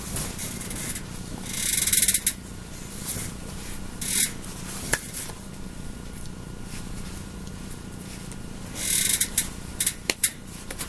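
Hands and jacket sleeves brushing and rustling during sign language, in several short bursts, with a few sharp taps near the end, over a steady low hum.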